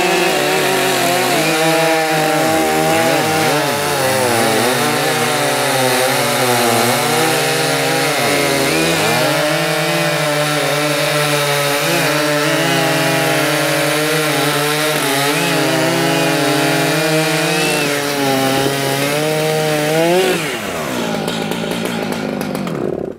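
Two Stihl MS 881 two-stroke chainsaws at full throttle cutting through a thick log side by side, their engine pitch sagging and recovering under load. One finishes its cut about a second before the other, and near the end both drop back to a lower, slower run.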